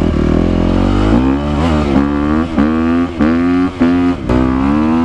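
Honda dirt bike engine running steadily, then pulling away under throttle. The revs climb in a series of short rising pulls, each broken by a brief dip.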